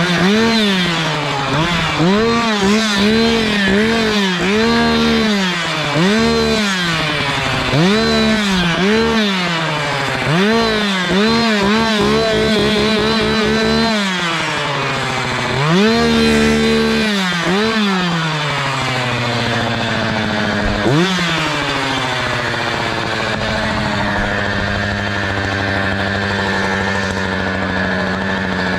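Echo two-stroke chainsaw revved again and again, its pitch climbing and dropping roughly once a second, then settling to a steady idle for the last several seconds.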